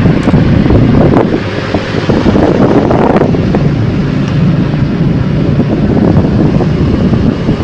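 Air from a running electric fan buffeting the microphone: a loud, steady rush.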